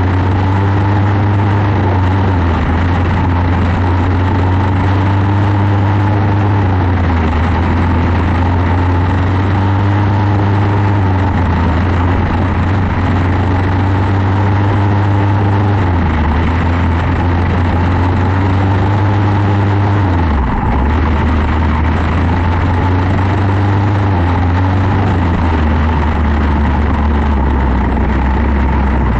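Quarter midget race car's single-cylinder Briggs & Stratton Animal engine running hard around a small oval. The pitch climbs along each straight and drops sharply into each turn, about every four to five seconds, six times over.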